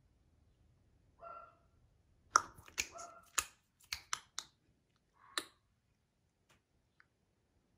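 A brief high squeak, then a quick run of about eight sharp clicks or snaps over two seconds, and one more click a second later.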